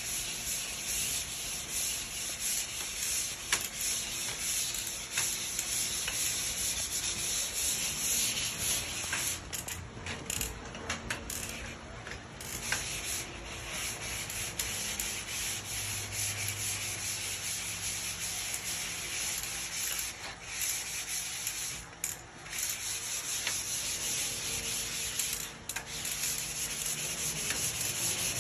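Drywall coated with joint compound being sanded by hand with a sanding pad, a continuous rasping hiss that breaks off briefly a few times.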